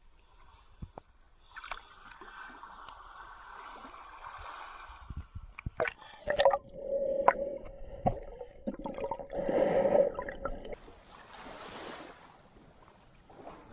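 Water gurgling and splashing close by, with a few sharp knocks and a steady hum in the middle.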